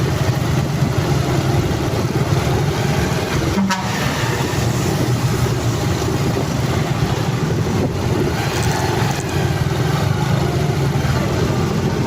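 Vehicle engine running steadily while on the move, with wind noise on the microphone.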